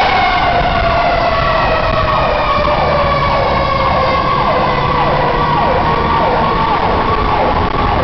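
Fire engine sirens sounding while the engine drives on a call, heard from aboard the rig. One siren tone slowly falls in pitch, while a second sweeps down over and over, about one and a half times a second, above the truck's engine and road rumble.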